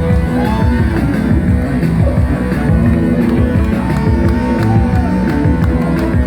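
A live darkwave/post-punk band playing an instrumental passage: bass, drums and guitar with a steady beat, and a few gliding synth-like tones over the top.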